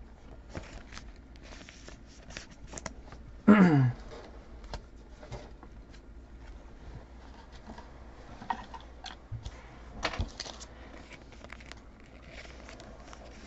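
Faint rustling and light clicks of Bowman's Best trading cards being handled and flipped through. There is a brief vocal murmur about three and a half seconds in, and a slightly louder rustle around ten seconds.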